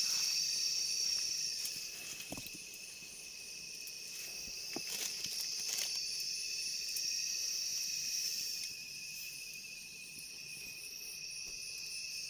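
Insects chirring steadily in a high, continuous drone with a thinner steady tone beneath it, and a few faint clicks in the middle.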